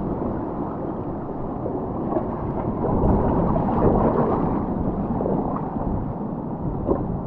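Sea water washing and swirling around tidal rocks, a wave surge swelling louder for a couple of seconds in the middle.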